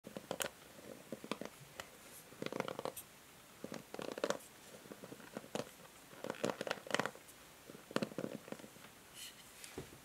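Fingertips and nails stroking and flicking the ball-tipped plastic pins of a paddle hair brush, giving irregular clusters of light clicks and rustles.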